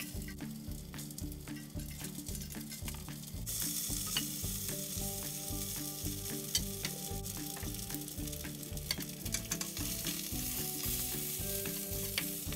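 Food sizzling and crackling in a pan, louder from about three and a half seconds in. Background music with a steady beat plays underneath.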